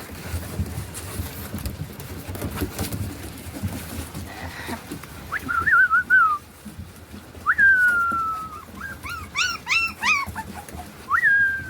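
Puppy whining and whimpering in high, pitched cries: a run of short whines about five seconds in, one long falling whine near eight seconds, a quick cluster of yelps after it, and one more whine near the end.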